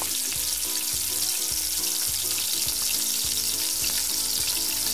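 Flour-and-semolina-dredged squid rings deep-frying in hot peanut oil: a dense, steady sizzle and crackle of bubbling oil.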